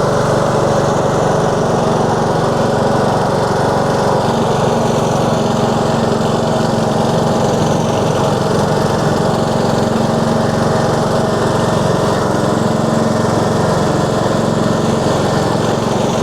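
Husqvarna TS142 riding lawn mower's engine running steadily with the cutting deck not yet engaged.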